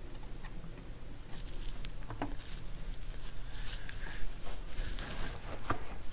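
Scattered light clicks and small handling noises from hands working on a turntable's tonearm mechanism, over a steady low hum.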